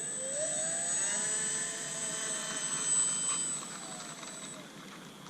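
RC Cessna 182 model's motor and propeller winding up in pitch, holding a steady whine for a few seconds, then easing back down and fading about four seconds in.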